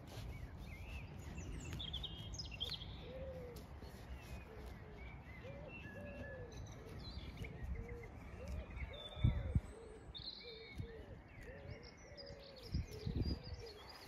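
Songbirds chirping and trilling, with a dove cooing in repeated low phrases through most of the stretch, over a low rumble of wind noise. A few low thumps stand out, the loudest about nine seconds in.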